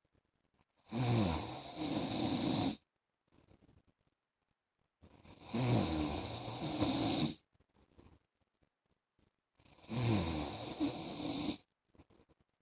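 A man snoring: three long snores of about two seconds each, one every four to five seconds, with a low rattle and breathy hiss, and quiet between them.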